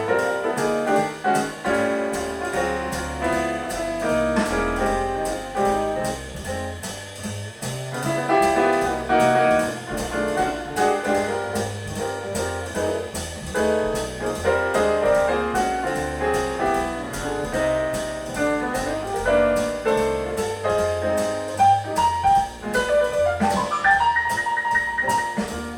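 Jazz with piano, played from vinyl on an Acoustic Signature Tornado Neo turntable through Raidho 1.6X loudspeakers.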